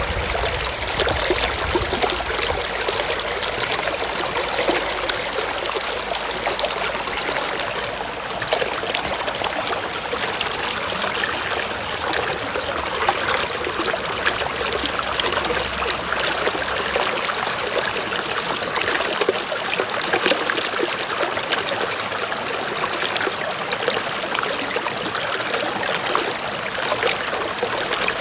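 Running water, a stream or brook trickling and splashing steadily.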